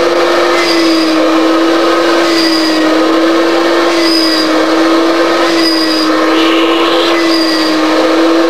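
Vacuum cleaner running steadily: a loud, even motor hum with a faint high chirp about every second and a half.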